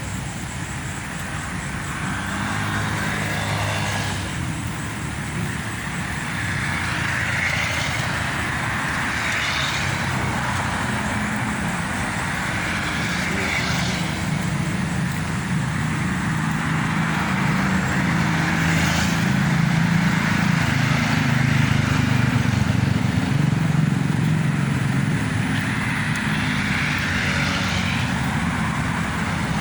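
Road traffic going by: a steady low drone of engines with tyre noise that swells and fades as vehicles pass every few seconds.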